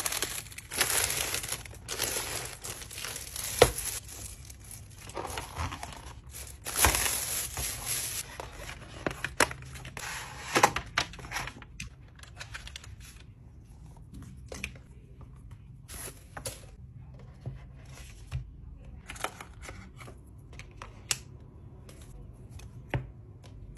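Cardboard and paper packaging being torn open and crinkled, in irregular bursts with a few sharp snaps. About halfway through this gives way to scattered light clicks and taps as a box and a tablet case are handled.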